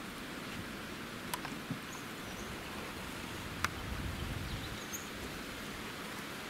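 Steady outdoor bush ambience, a soft even hiss, with a few faint short high chirps and a couple of sharp clicks. The loudest click comes a little past halfway, with a brief low rumble just after it.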